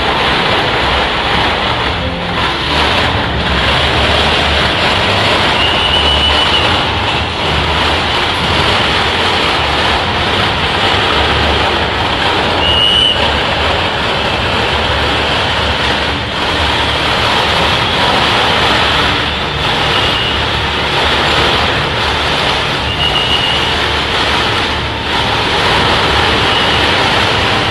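Steady, dense wash of heavy rain mixed with street traffic noise, with a few brief high tones now and then.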